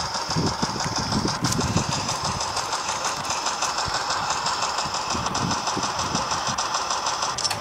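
Small electric motor whirring steadily, the flywheel motors of a motorized Nerf blaster spinning, with low wind rumble on the microphone.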